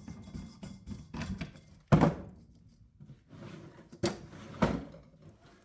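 A few clunks and knocks of a metal panel and tools being handled and set down on a workbench, the loudest about two seconds in, with two more near the end and quieter rustling between.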